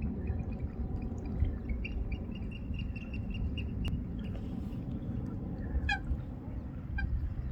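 Birds calling: a quick run of short high notes through the first few seconds, then a few separate louder calls in the second half, over a steady low rumble.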